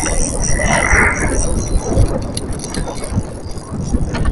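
Wind buffeting the microphone on an open boat at sea: a steady low rumble with irregular gusty thumps and a few light clicks.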